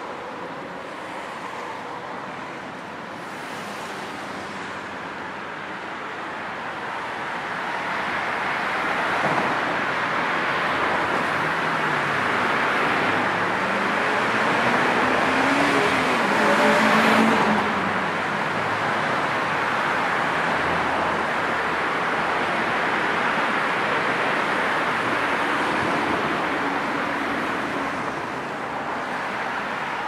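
Road traffic noise: a continuous wash of tyres and engines that swells as vehicles pass close, loudest a little past halfway through.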